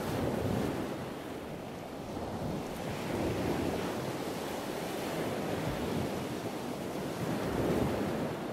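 Sea surf breaking on a sandy beach: a steady rush of noise that swells and eases a few times as the waves come in.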